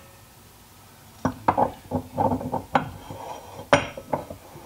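Steel transfer case clutch hub clinking and knocking against the shaft splines and clutch drum as it is worked down into place by hand: a run of sharp metallic clicks and clanks starting about a second in.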